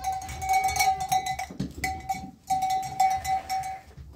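Livestock bell jangling with quick repeated clanks over a steady ringing tone. The ringing breaks off twice and stops shortly before the end.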